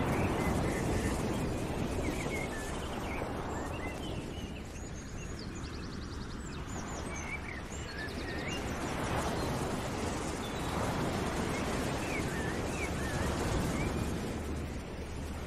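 Steady rushing outdoor ambience that swells and eases every few seconds, with birds chirping faintly over it.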